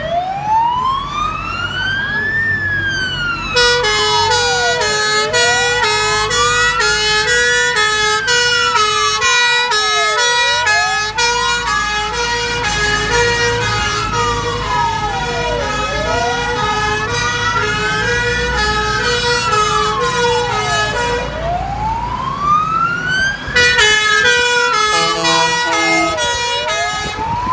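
Fire engine's electronic siren wailing, sweeping slowly up and down about every five seconds. For most of the time a second, fast two-note siren tone sounds over it. The truck's engine rumbles beneath as it pulls out and drives past.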